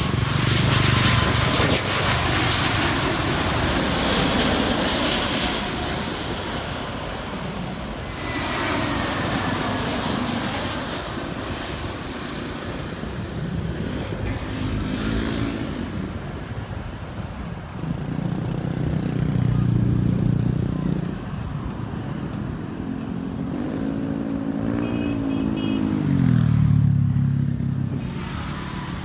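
A jet airliner passes low overhead on its landing approach: a broad roar over the first several seconds, then a falling whine. After that comes road traffic, with vehicle and motorcycle engines passing one after another, their pitch rising and then falling as each goes by.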